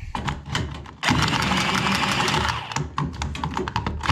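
Hacksaw cutting through 10mm microbore copper heating pipe in rapid back-and-forth strokes, with a denser, louder run of sawing from about a second in.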